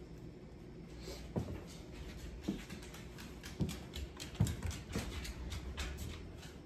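A dog's claws clicking on a hardwood floor as it walks about, with soft padding footfalls: irregular clicks several a second, starting about a second in.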